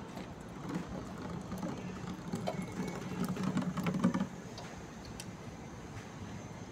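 A low mechanical buzz that grows louder over a few seconds, then cuts off suddenly about four seconds in, with a few light clicks.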